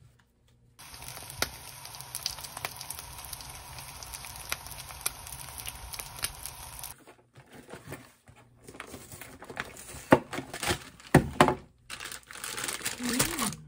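A steady hiss with scattered clicks for several seconds, then a cardboard instant-soup box and foil sachet being opened: irregular crinkling, crackling and tearing of paper and foil packaging, loudest in the middle of that stretch.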